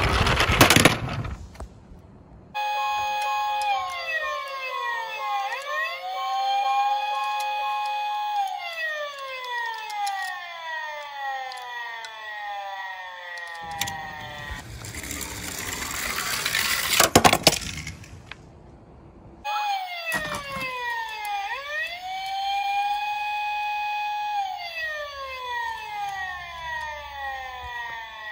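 Electronic toy siren wailing in several overlapping tones that fall and rise in pitch. It cuts in suddenly near the start and again about two-thirds in. Between the two, and briefly at the very start, there are a few seconds of loud rattling clatter as toy minicars roll down a plastic slope.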